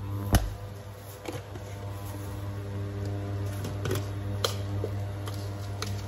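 Induction cooktop humming steadily under a pot of water, its coil buzz and cooling fan running on. A sharp knock comes about a third of a second in, with a few fainter clicks around four seconds in.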